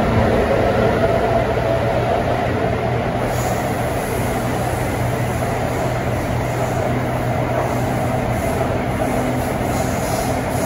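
Taipei Metro C301 train running between stations, a steady rumble of wheels on track with a motor hum underneath; the low hum fades out near the end.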